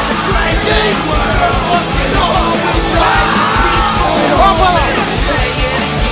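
Loud, steady rock music with a shouted, yelled vocal over it.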